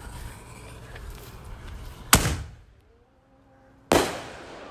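Two sharp firework bangs about two seconds apart, each with a short echoing tail.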